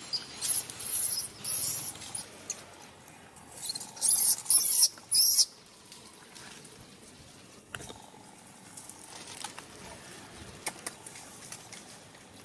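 A newborn macaque struggling on dry leaves and litter, making short, sharp, high-pitched bursts of sound: a few in the first two seconds, then four loud ones in quick succession around the middle, followed by faint scuffing.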